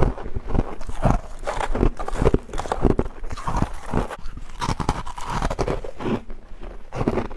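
Close-up crunching and chewing of freezer frost, an uneven run of crisp crunches, two or three a second.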